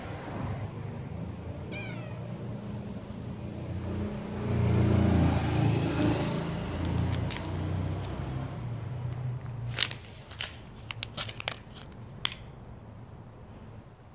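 A cat's low, drawn-out vocalising, loudest about four to six seconds in, followed by several sharp clicks in the second half.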